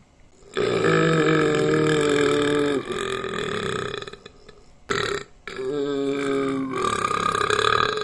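A man burping on purpose: a long drawn-out burp of about two seconds, a short one about five seconds in, then another long burp near the end.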